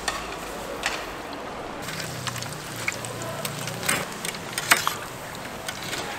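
Deep-frying oil sizzling steadily, with metal tongs clacking against the fryer's wire draining rack a few sharp times as battered fried peppers are lifted out.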